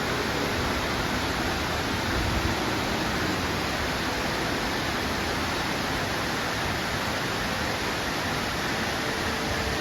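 Bridal Veil Falls' cascade in steady, unbroken rushing water noise.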